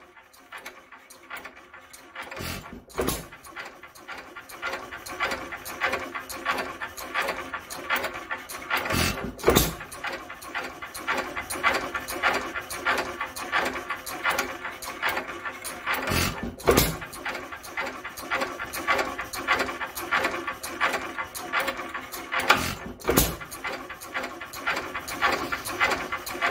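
Modified International hit-and-miss engine running, firing with a strong pop about every six to seven seconds and coasting between fires, with rapid clicking from the engine's mechanism throughout.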